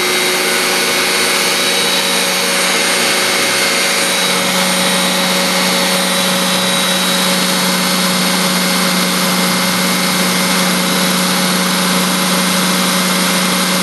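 Food processor motor running steadily at full speed, its blade churning biscuits and butter into crumbs.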